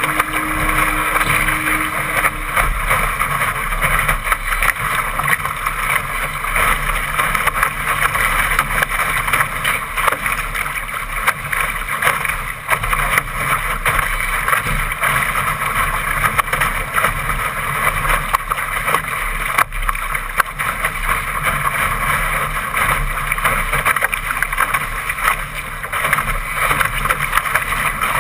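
Water rushing and splashing along the hull of a Laser sailing dinghy moving fast through chop, with wind buffeting the microphone: a steady loud hiss speckled with small spray hits.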